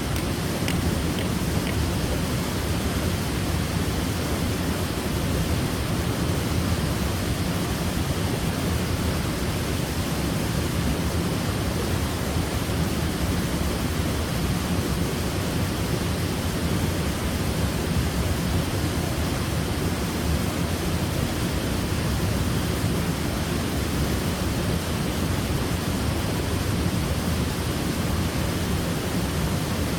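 Waterfall: water falling and splashing in a steady, unbroken rush, heaviest in the low range.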